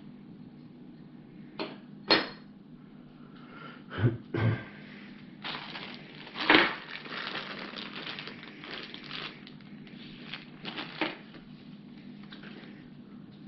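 Parts being handled on a wooden table: a couple of sharp clinks of thin sheet-metal brackets, two dull knocks on the tabletop, then a few seconds of plastic bags crinkling as bagged cables are moved, with a few more clicks near the end. A low steady hum lies underneath.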